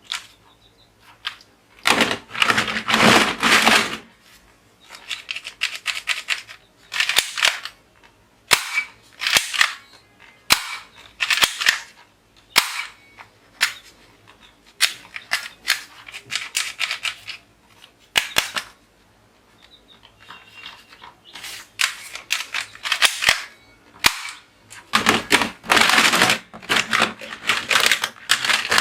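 Toy guns firing in repeated bursts of rapid clicking shots. The longest bursts come about two seconds in and near the end, with shorter bursts in between.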